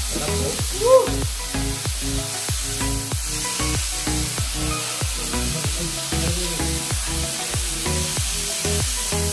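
Thin slices of beef sizzling on a hot round tabletop grill pan as more slices are laid on with tongs. Background music with a steady beat plays under the sizzle.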